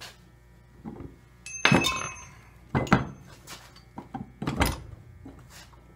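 A small-block Chevy cylinder head being turned over on a metal head stand: several loud clunks and knocks, the first with a brief metallic ring, plus lighter taps in between.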